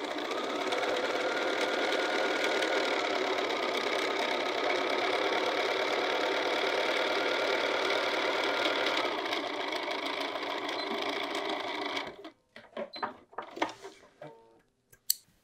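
Bernina sewing machine stitching steadily through heavy fabric, then stopping about twelve seconds in. Fabric rustles and a few light clicks follow as the work is pulled out from under the presser foot.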